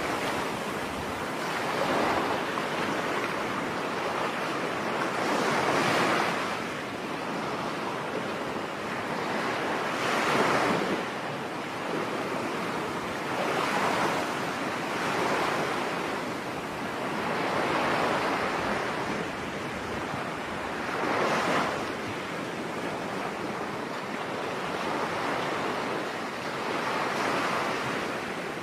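Ocean surf on a beach: waves breaking and washing in, swelling and fading every few seconds.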